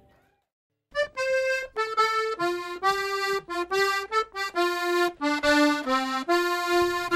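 Background music: after a moment of silence, a solo melody of short, separate notes, one at a time, begins about a second in.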